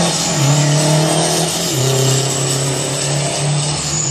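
Diesel semi tractor accelerating hard down a drag strip, its engine note loud and steady. The pitch drops abruptly about half a second in and again just under two seconds in as it shifts up through the gears.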